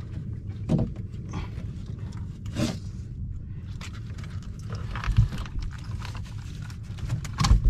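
A few scattered knocks and scrapes as a giant trevally is held down and its gills are cut on a fibreglass boat deck, the loudest knock near the end, over a steady low rumble.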